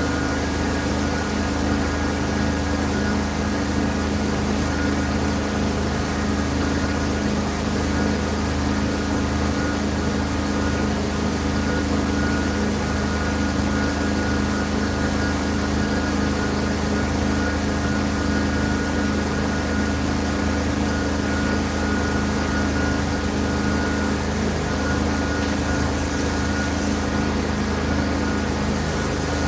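Steady drone of a running engine-driven carpet-cleaning machine, a low hum with a thin constant whine on top.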